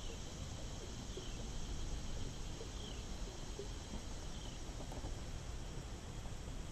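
Quiet outdoor ambience: a short, high chirp that falls in pitch repeats about every one and a half seconds, over a steady low rumble.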